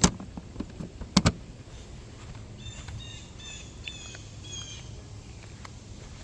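Two sharp knocks about a second apart, then a bird chirping a quick run of short, high calls over a low steady hum.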